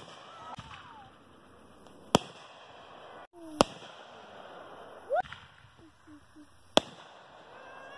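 Aerial fireworks going off: three sharp bangs spaced one to three seconds apart, with a short rising whistle about five seconds in.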